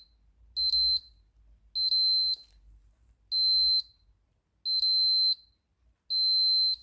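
Multimeter continuity tester beeping in a run of about five steady high-pitched beeps, each roughly half a second long and a little over a second apart. Each beep is the reed switch closing under a magnet and completing the circuit, showing the switch works.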